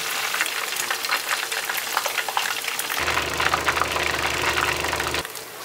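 Potato-starch-battered chicken pieces deep-frying in a steel pan of hot oil, a dense steady crackle and bubbling. About three seconds in, a steady low hum joins the frying and stops shortly before the end.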